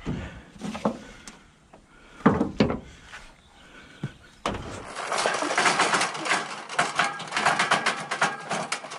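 Thumps and knocks from a Yamaha Banshee ATV being shoved and settled in a pickup truck bed, the loudest pair a little over two seconds in. From about halfway on, a dense rattling, scraping noise takes over.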